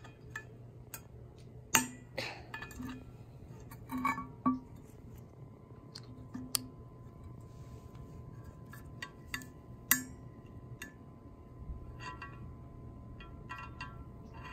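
Scattered metallic clinks and clicks as a carabiner and a plastic handle ring knock against a stainless-steel water bottle, the loudest about two seconds in and near ten seconds in.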